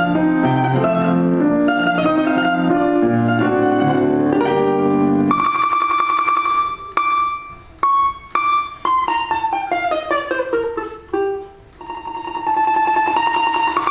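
Russian folk plucked string instrument playing a folk-song arrangement: about five seconds of melody over low accompanying chords, then a solo passage of a held tremolo note, single plucked notes with short pauses and a falling run, ending on tremolo again.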